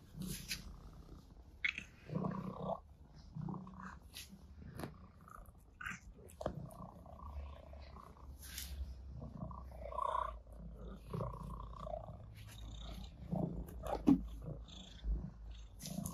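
Orange tabby cat purring as it is stroked by hand: a low steady rumble, with scattered soft taps and rubbing sounds throughout.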